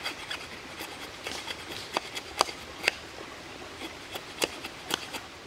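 Knife shaving a conifer-wood bow-drill spindle: about a dozen short, sharp, irregular scraping ticks over a faint steady hiss.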